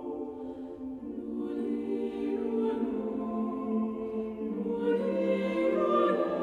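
Choir singing a slow lullaby carol a cappella: long held chords that move slowly from one to the next, swelling louder about five seconds in.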